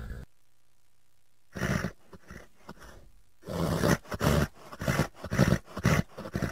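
An animal's loud, rough calls: one short call about a second and a half in, then a run of calls in quick succession from about three and a half seconds in.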